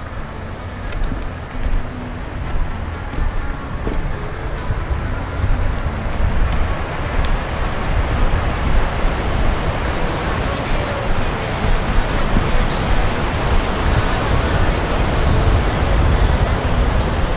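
Steady rushing noise of a mountain bike descending a rocky trail beside a mountain stream: wind buffeting the helmet-camera microphone, the stream, and the bike rattling over stone slabs. It grows louder about a third of the way in.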